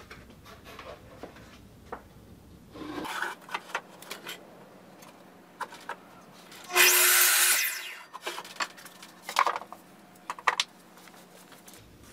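A miter saw cutting a 1x2 wooden rail: one short cut of about a second, near the middle. Scattered knocks and clicks of the board being handled come before and after it.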